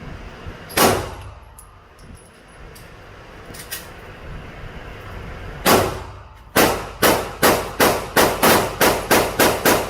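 Gunshots: a single loud shot about a second in, a fainter shot a few seconds later, another loud shot a little past the middle, then a rapid string of about ten shots, roughly three a second, toward the end.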